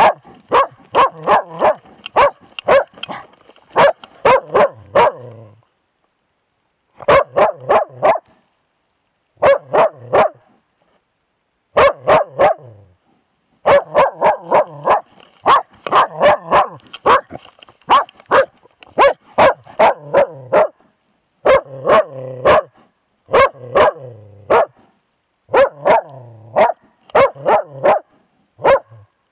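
A young moose-hunting dog barking in quick runs of several barks, about three a second, with short pauses between runs, heard very close from a camera worn by the dog. The dog is baying at a moose cow and calf.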